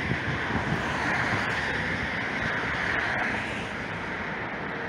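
Wind buffeting the microphone in uneven low gusts, over a steady background hiss.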